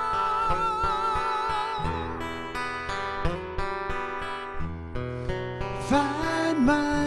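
Acoustic guitar accompaniment in a song, with a held note wavering in vibrato that dies away about two seconds in. A wavering voice-like phrase comes back in near the end.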